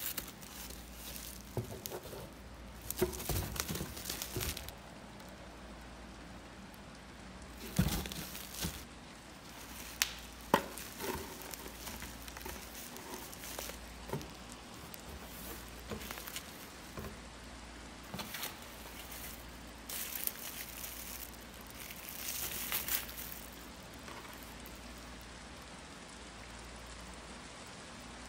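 Plastic bubble wrap and packaging crinkling and rustling in bursts as wrapped items are handled in a cardboard box, with a few sharp taps and knocks.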